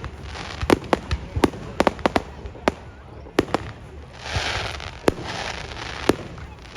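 Fireworks display: aerial shells bursting in an irregular series of sharp bangs, about a dozen in all. A hissing crackle swells a little past the middle.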